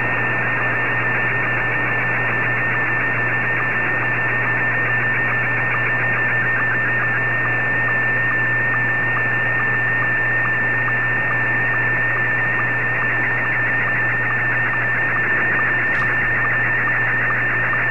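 Slow-scan TV (SSTV) picture transmission heard through a shortwave receiver on 14.230 MHz in single sideband: a continuous tone with a fast, even pulse over radio hiss, the signal a decoder turns into an image line by line.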